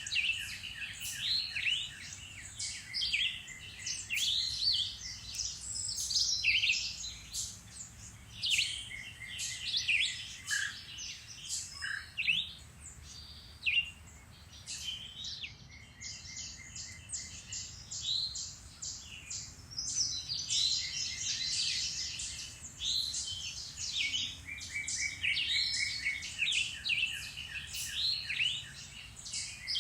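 Several woodland songbirds singing and calling at once, overlapping chirps and quick trills, with fewer calls for a few seconds around the middle.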